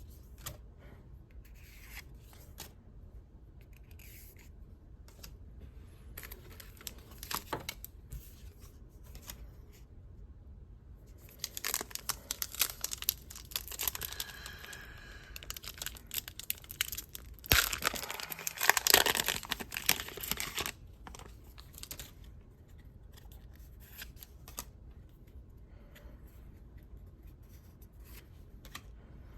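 Pokémon Celebrations card packaging being torn open and crinkled by hand: light handling clicks, then two louder bouts of tearing and crinkling around the middle.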